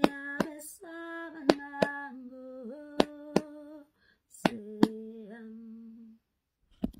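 A woman humming a slow wordless tune in long held notes, stepping down to a lower note in the last part before stopping about six seconds in. Finger snaps keep time in pairs, one pair about every second and a half.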